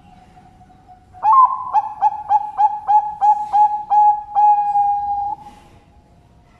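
Zebra dove (perkutut) singing: a quick run of about nine short cooing notes, ending in one longer held coo.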